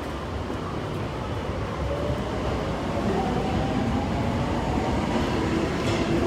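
Marunouchi Line subway train running along the platform, growing louder, with an electric motor whine rising in pitch as it accelerates.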